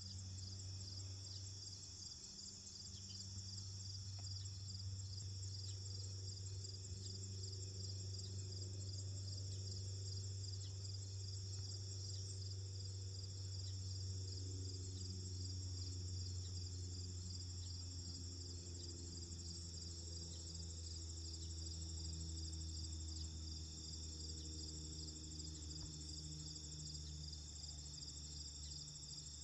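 Insect chorus in a meadow, a steady high-pitched trill with fast, even pulsing, over a low steady rumble.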